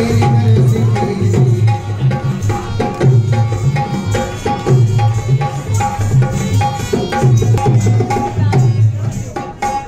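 Live Rajasthani folk music: a dholak hand drum beats a fast, steady rhythm, with short repeated melodic notes above it.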